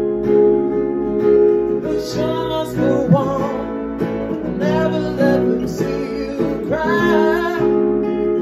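Ibanez acoustic guitar strummed in a steady rhythm, capoed, with a man singing phrases over it from about two seconds in.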